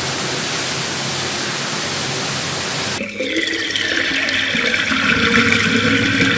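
Water pouring from two taps into a plastic bucket, a steady rushing splash. About three seconds in this changes to water draining down a plughole in a swirl, a gurgling rush with a faint whistling tone that sinks slowly in pitch.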